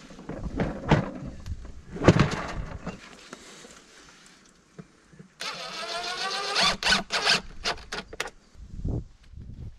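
Plastic wall-mounted hose reel knocking and clattering as it is hung onto its wall bracket, with the loudest knock about two seconds in. Past the middle comes a wavering hiss of about two seconds, then a few clicks and a low thump.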